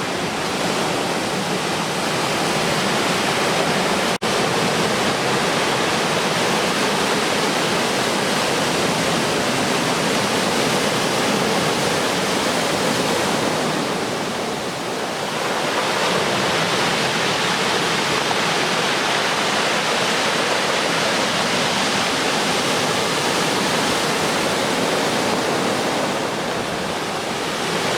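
Steady roar of surf breaking on a beach under a large typhoon swell, with a momentary dropout about four seconds in.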